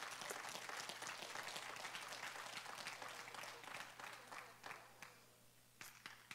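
A congregation applauding softly, thinning out to a few scattered claps about four seconds in.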